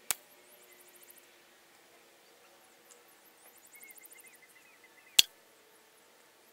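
Two shots from a Winchester 1028 .177 spring-piston pellet rifle: sharp cracks about five seconds apart, the second louder. Insects chirr faintly in the background.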